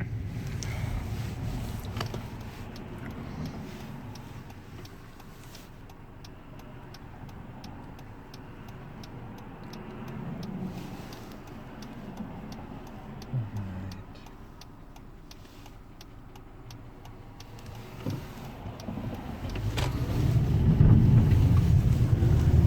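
2012 Hyundai Elantra heard from inside the cabin, engine running as the car pulls away at low speed. A light, regular ticking of a couple of clicks a second runs through the middle. Engine and road noise grow louder near the end as the car picks up speed.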